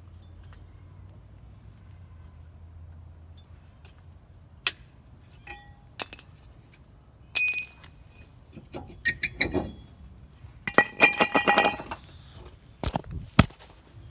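Hard objects clinking: single sharp clinks, some with a brief ring, then a quick rattle of many clinks about two thirds of the way in, and two hard knocks near the end.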